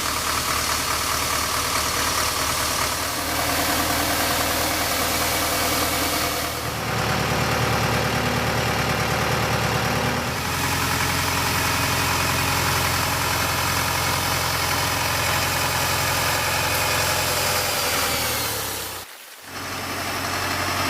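Farm machinery engine running steadily at a constant speed. The engine sound changes character twice, about six and ten seconds in, and briefly cuts out near the end.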